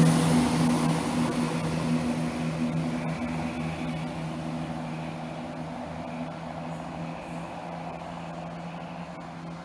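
Chiltern Class 168 diesel multiple unit pulling away, its steady low engine drone fading as it departs.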